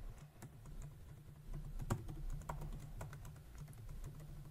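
Typing on a computer keyboard: faint, irregular key clicks, with one louder keystroke about two seconds in.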